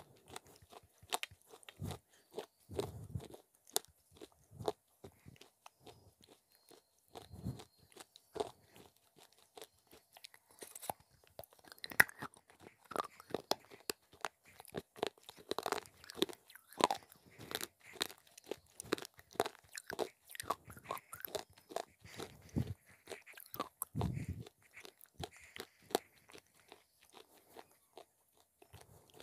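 Close-miked biting and chewing of broken baked-clay (terracotta) pot pieces: a long run of sharp crunches, densest in the middle, with a few low thumps.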